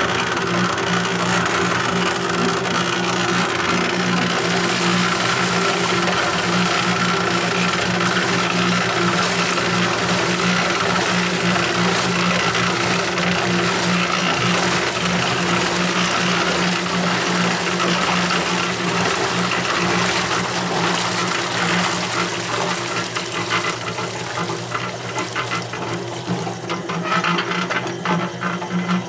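Small cement mixer running with its drum tipped down, a steady motor and drum hum while a watery slurry of mill tailings pours out into a wheelbarrow. Near the end the sound turns uneven, with irregular knocks.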